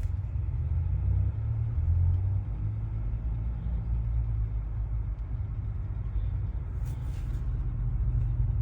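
Hyundai Elantra MD running with a low, steady rumble, with a short rattle about seven seconds in.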